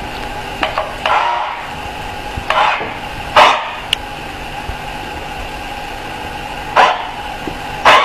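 A dog barking in short, irregular barks, about six of them, the loudest about three and a half seconds in. Under the barks runs a steady whine from the remote-control toy forklift's small electric drive motor.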